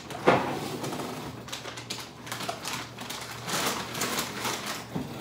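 Crinkly plastic frozen-food bags rustling and knocking as they are packed into a freezer, with a sharp knock just after the start and a busier run of rustling in the middle.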